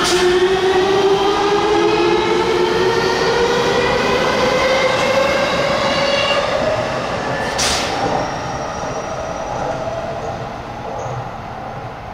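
Tsukuba Express TX-2000 series electric train pulling away from a station, its inverter-driven traction motors whining in a chord that rises steadily in pitch as it gathers speed, over the rumble of the wheels on the rails. One sharp click about eight seconds in, then the sound fades as the train draws away.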